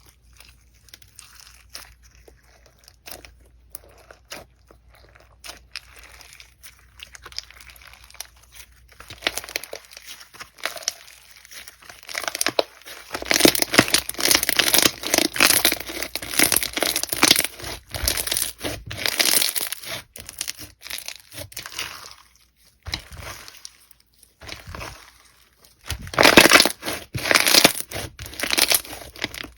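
Slime being squeezed and pressed by hand, giving dense crackling and popping: soft at first, loudest in two long spells in the middle and near the end.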